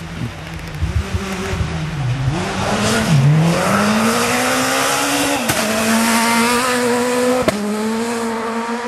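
Rally car running hard on a gravel stage: its engine note drops and climbs several times through gear changes, then holds a steady rising note as it comes close. Two sharp cracks cut through, about five and a half and seven and a half seconds in.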